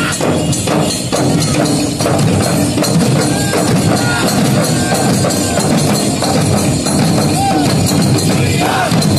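A folk drum troupe playing live: many large barrel drums, slung from the shoulders and beaten with sticks, keep up a dense, continuous rhythm together.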